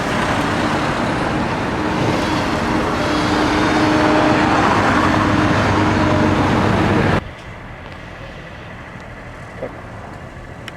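Road traffic going by: a steady rush of engines and tyres with a low engine hum in it. It stops abruptly about seven seconds in, leaving a much quieter background.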